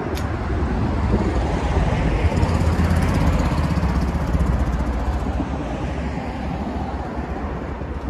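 A motor vehicle driving past, getting louder over the first few seconds and fading after about five seconds in, over steady outdoor wind and traffic noise.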